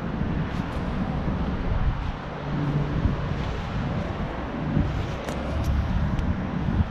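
Outdoor air conditioner condenser unit running with a steady low hum and rumble, with wind buffeting the microphone.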